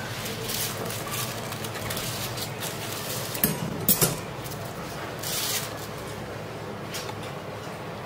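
Kitchenware clinking: a few sharp knocks of dishes or metal utensils about halfway through, with light rustling and handling noise around them.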